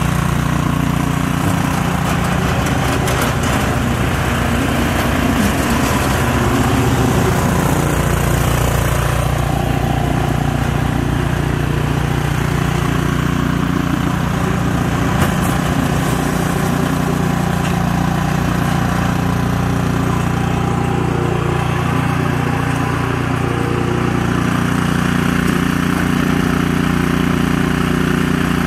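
Two-stage snowblower's small gasoline engine running steadily while the machine is driven along pavement, its tone shifting slightly a few times.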